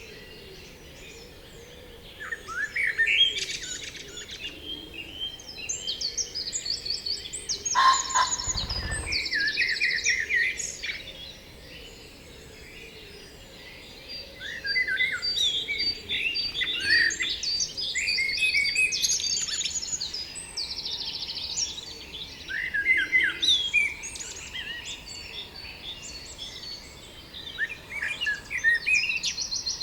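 Several songbirds singing at once: overlapping chirps, whistled phrases and fast trills, coming and going in bursts. A brief low thump sounds once, about eight seconds in.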